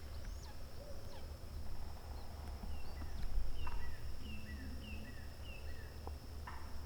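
Woodland birdsong: a bird repeating short down-slurred chirps about twice a second over a steady high-pitched hum, with a low rumble underneath.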